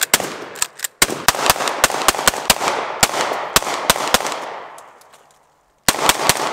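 Semi-automatic pistols fired in rapid strings, shots a few tenths of a second apart, each trailing an echo. The firing falls silent about five seconds in, then starts again less than a second later.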